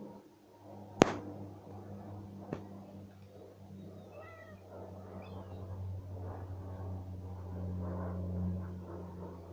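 A domestic cat meowing once, about four seconds in, with a fainter second call just after. A sharp click about a second in is the loudest sound, over a steady low hum.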